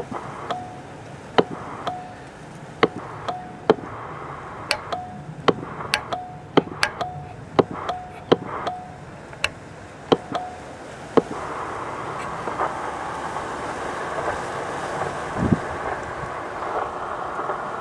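Irregular clicking as a vintage CB transceiver's microphone is keyed on and off to transmit, many of the clicks followed by a brief steady tone. From about eleven seconds in, a steady hiss takes over.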